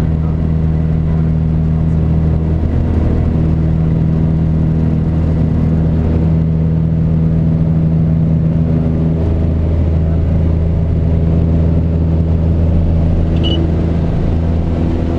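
Piper Cherokee 180's four-cylinder piston engine and propeller running steadily at high power, heard inside the cabin during the takeoff run and climb-out.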